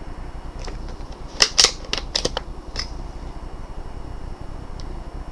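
A handful of sharp, irregular mechanical clicks and clacks about a second and a half in, then one faint click near the end: handling of a BSA R10 air rifle and its scope while adjustments are made before the next shot.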